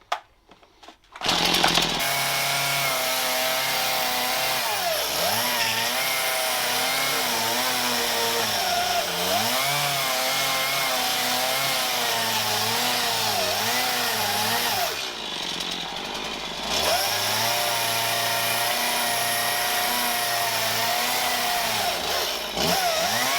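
Chainsaw shaving wood on a carving log, coming in loud about a second in and running near full speed. Its pitch sags and recovers several times as the chain bites into the wood, with a short easing-off about two-thirds of the way through.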